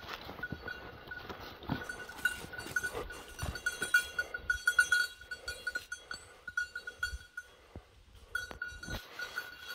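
A bird dog's collar bell jingling irregularly as the dog moves through the cover, stopping briefly near the end, over footsteps rustling in dry leaves.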